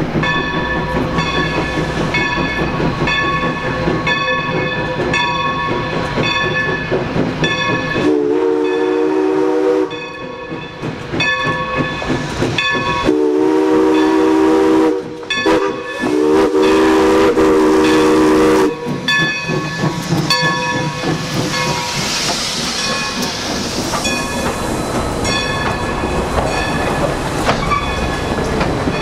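New Hope & Ivyland #40, a 2-8-0 Consolidation steam locomotive, blowing its chime whistle in the long-long-short-long grade-crossing pattern over the rumble of the passing train. A bell dings about twice a second before and after the whistle, and a hiss of steam follows it.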